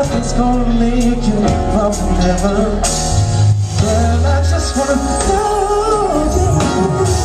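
R&B song: a male voice singing over a band with bass and drums.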